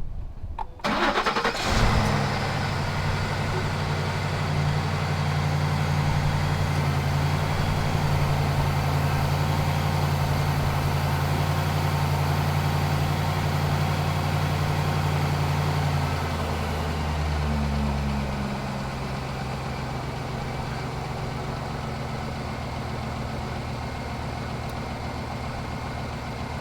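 Lincoln Navigator's 5.4-litre V8 cranking and starting about a second in, then running at a steady fast idle. About two-thirds of the way through the idle drops and settles lower and quieter.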